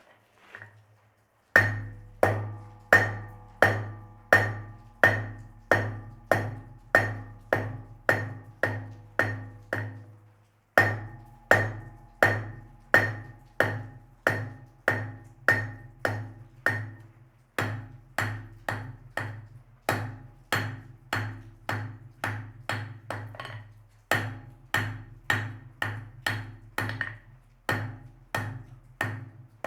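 Hammer blows on hot steel over an anvil, in a steady rhythm of about one and a half strikes a second, each ringing briefly, with a few short pauses.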